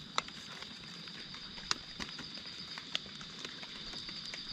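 Footsteps crackling on dry leaves and twigs, a few sharp snaps spread through the moment, over a steady high insect trill.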